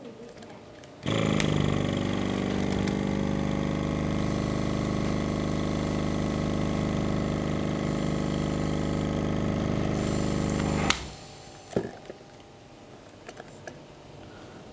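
Small 12-volt oil-less diaphragm air compressor running with a steady hum, switched on about a second in and cut off suddenly some ten seconds later, followed by a faint click.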